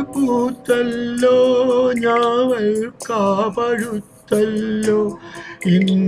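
A man singing a Malayalam film melody over a karaoke backing track, his wavering held notes broken into phrases by brief pauses.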